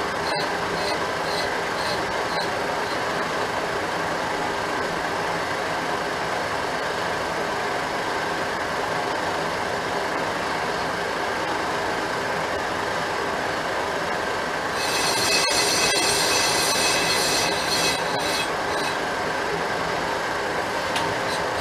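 Metal lathe turning a cast-iron vented brake rotor with the cutting tool skimming its face: a steady running and cutting noise with a faint squeal pulsing about twice a second at first. About two-thirds of the way through it turns louder, into a high-pitched squeal of several steady tones as the tool cuts.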